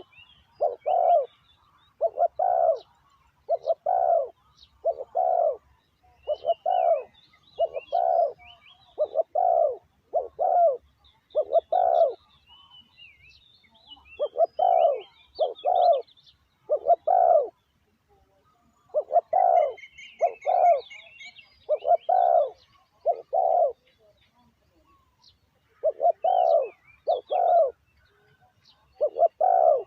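Spotted dove cooing: a caged decoy dove calling to lure wild doves, repeating low coo notes about one a second in runs broken by short pauses. Small birds chirp faintly in the background.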